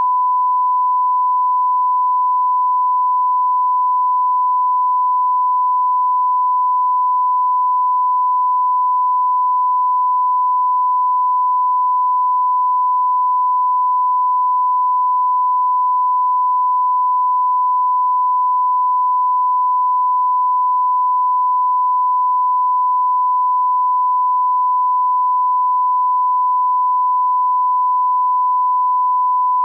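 Steady 1 kHz sine reference tone, the line-up tone that goes with colour bars at the head of a broadcast master and serves to set audio levels.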